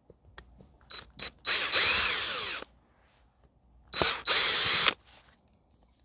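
Power screwdriver running twice, about a second each, the first run slightly longer, as it backs screws out of the rear cover of an old Jeep ZJ fog light housing. A few light clicks of handling come before the first run.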